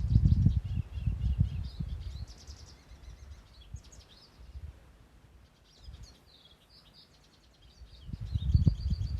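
Several small birds chirping and trilling in quick short notes. A loud, gusty low rumble fills the first two seconds and comes back near the end, louder than the birds.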